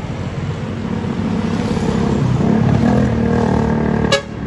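A tour bus engine running as the bus approaches, growing louder over about three seconds, with a sharp click near the end after which the sound drops.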